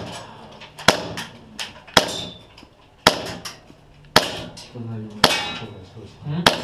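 Maruzen Walther P99 gas blowback airsoft pistol fired shot after shot through a chronograph with 0.2 g BBs, about one sharp shot a second, six in all.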